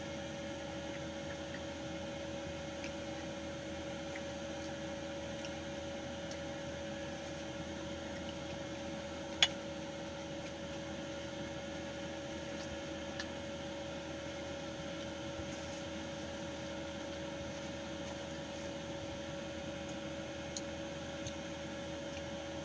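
Steady room hum holding two even tones, with one sharp click a little over nine seconds in and a faint tick a few seconds later.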